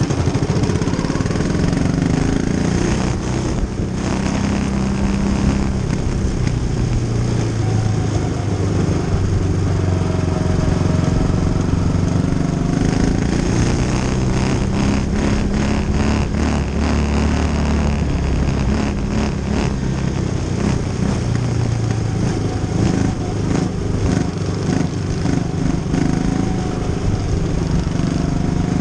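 Quarter midget race car's small single-cylinder engine running hard on track, its pitch rising and falling as the throttle comes on and off through the corners. A run of clicks and knocks comes partway through.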